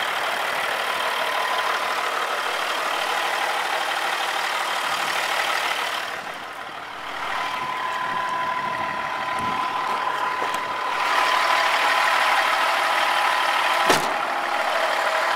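Caterpillar 3406B inline-six diesel of a 1990 White GMC Volvo semi truck idling steadily. It is briefly quieter about six seconds in, and there is a single sharp click near the end.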